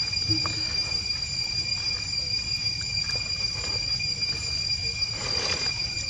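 A steady, high-pitched insect drone over a constant low rumble, with a brief louder swell of noise about five seconds in.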